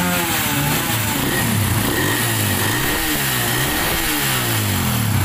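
Suzuki Raider 150 motorcycle's single-cylinder four-stroke engine running, its revs repeatedly rising and falling.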